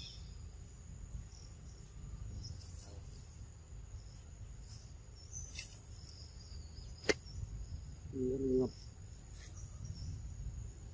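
Forest ambience: a steady high insect drone over a low rumble, with one sharp click about seven seconds in and a short low-pitched call lasting about half a second just after eight seconds.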